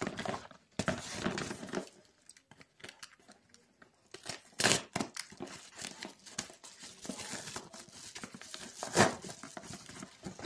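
A yellow padded postal mailer being handled, crinkled and torn open, with two sharp, louder tearing rips, one a little under halfway through and one near the end.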